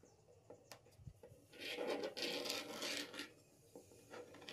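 A few light knocks, then the marking point of a homemade wooden beam compass scratching across a plywood sheet for about two seconds as it is swung around to scribe a circle.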